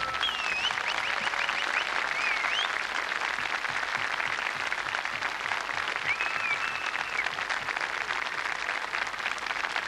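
Large outdoor audience applauding steadily, with a few high gliding whistles rising above the clapping near the start and again about six seconds in.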